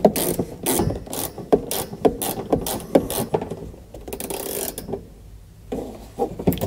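Ratcheting box-end wrench fitted with a Phillips bit adapter, clicking in short back-and-forth strokes as it drives a dash defrost grille screw. The clicking pauses briefly about two-thirds of the way in, then a few more clicks follow near the end.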